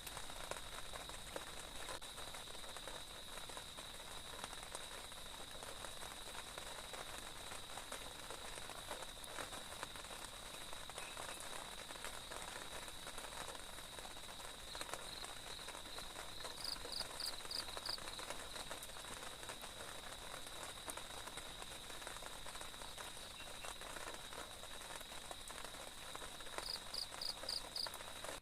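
Steady rain falling, with a continuous high-pitched insect drone beneath it. Two short runs of about five quick chirps break in, one about two-thirds of the way through and one near the end.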